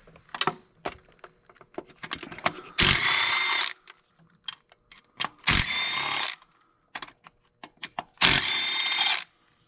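Power drill-driver with an 8 mm socket on an extension, run in three short bursts of about a second each to spin out small factory bolts, with light clicks and knocks of parts being handled in between.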